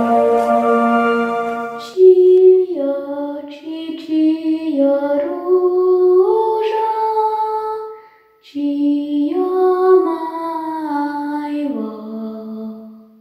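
A held chord of intro music for about two seconds, then a lone voice singing a slow, wordless-sounding melody in two phrases with a short break between them, fading out near the end.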